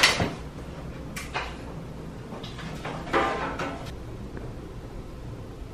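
Objects being handled on a desk: a knock at the start, then a few short rustles and scrapes, the longest about three seconds in.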